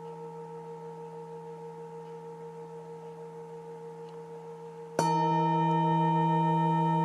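Singing bowl ringing on with a slow, wavering pulse in its tone. About five seconds in it is struck again, a sharp strike that sets it ringing much louder with bright high overtones.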